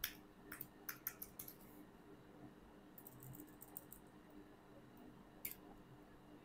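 Computer keyboard typing: faint, quick key clicks in two short runs, the first at the start and the second about three seconds in, then one lone keystroke near the end.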